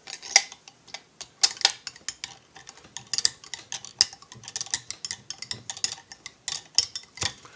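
Irregular light clicks and small knocks of metal parts being handled on a chainsaw's cylinder and crankcase during hand assembly.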